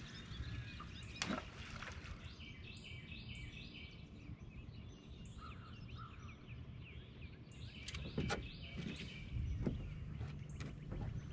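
Birds chirping over a low rumble of wind on the microphone, with a couple of sharp clicks, one about a second in and another about eight seconds in.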